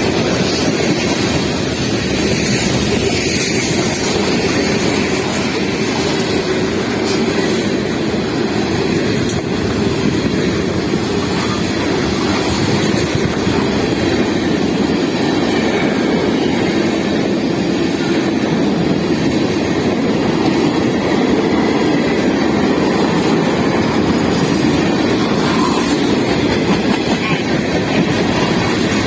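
Freight train rolling past at steady speed: a continuous rumble of wheels on rail with occasional clicks from the rail joints.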